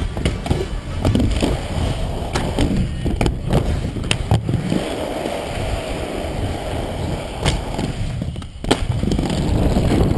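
Aggressive inline skate wheels rolling on a concrete skatepark surface: a steady rumble, broken by several sharp clacks of the skates striking the ground.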